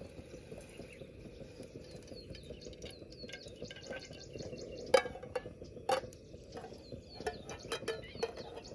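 A metal cooking pot on a camp stove being handled as oil is added: two sharp knocks about five and six seconds in, then a run of lighter taps. Birds chirp in the background.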